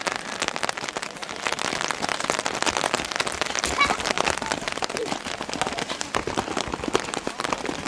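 Rain pattering close by: a dense, irregular crackle of small ticks, with a few brief faint voices.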